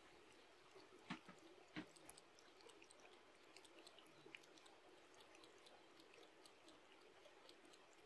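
Domestic cat lapping water from a plastic basin: faint, quick wet ticks of the tongue at the water's surface, with two louder clicks in the first two seconds.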